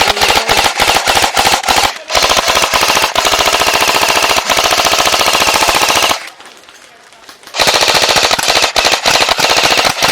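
Airsoft M60 machine gun firing long full-auto bursts of rapid, evenly spaced shots. The firing stops for about a second and a half around six seconds in, then starts again.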